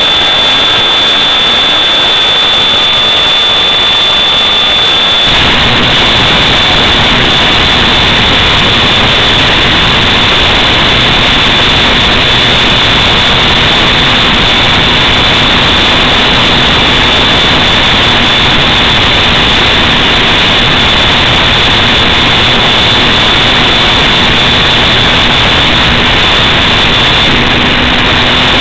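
Loud, steady rushing hiss with a thin high whine throughout, from the FPV model plane's onboard audio in flight. About five seconds in it suddenly turns to a denser, fuller hiss.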